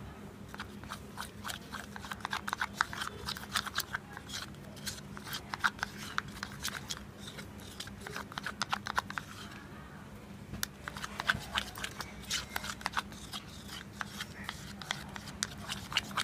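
Plastic spoon stirring thick block-printing paste (white binder with yellow colour) in a plastic cup, clicking and scraping against the cup's sides in quick irregular strokes, with a brief pause about ten seconds in.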